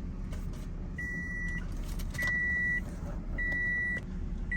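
Toyota Tundra's dashboard warning chime beeping: a steady high tone repeated four times, a little over a second apart, as the key goes in to start the truck.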